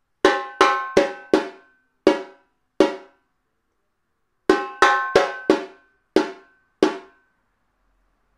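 Repinique (samba repique drum) played with a stick and the bare left hand. A six-stroke phrase of two rimshots, a left-hand note and three notes in the centre of the head is played twice, with a pause between. Each stroke rings briefly, and the first four strokes of each group come quickly before the last two follow more slowly.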